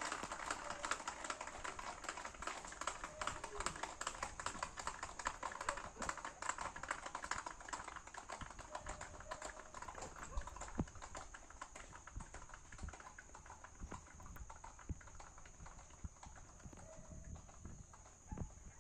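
Horses' hooves on a concrete road: a rapid, irregular clatter of clip-clops from several horses, growing fainter as they move off.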